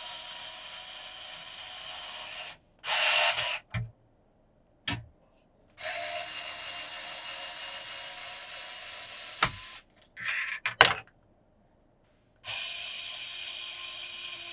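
A small handheld power tool running in several short bursts of a few seconds each, stopping and starting abruptly, with sharp clicks in between.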